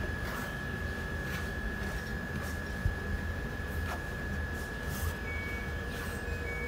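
Steady machine hum with a constant thin high whine, and light swishes of hands smoothing a cotton T-shirt flat on an ironing board.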